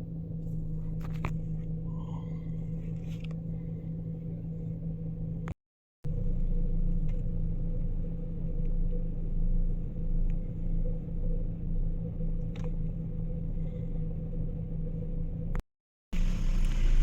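Car engine running steadily, a low even hum, with two brief dropouts where the sound cuts out completely.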